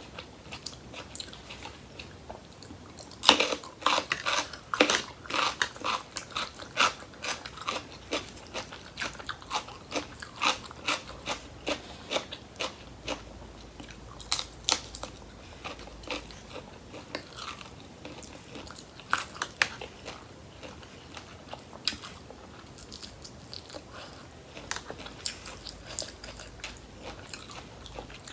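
Close-miked eating: crisp crunching bites and chewing of raw vegetables, a rapid run of crunches starting about three seconds in, thinning out in the second half.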